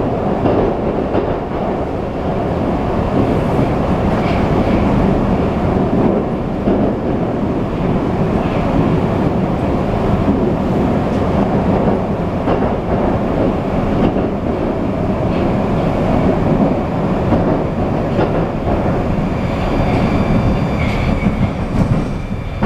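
Moscow Metro 81-775/776/777 (Moskva-2020) train running between stations, heard from inside the car: a loud, steady rumble of wheels on rail and running gear. A faint high whine joins in near the end.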